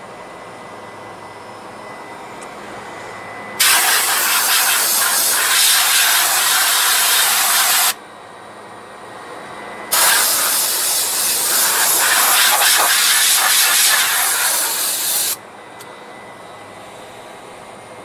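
Compressed nitrogen hissing through a refrigeration condensing coil in two long blasts, about four and five seconds long, blowing the dust out of a clogged condenser. Under it runs the steady noise of the condensing unit with its condenser fan on.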